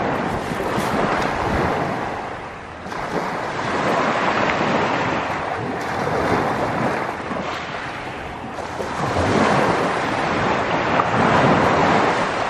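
Sea waves washing in on the shore, the surge swelling and falling back every two to three seconds.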